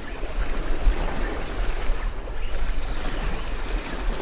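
Sea water washing against shoreline rocks, with wind buffeting the microphone in a low, uneven rumble.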